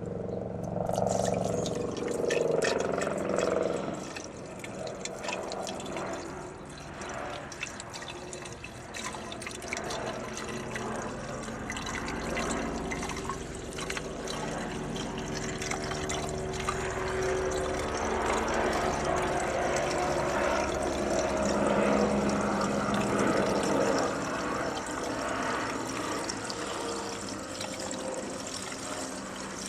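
Water being poured from a container into a car engine's open cooling system, filling it.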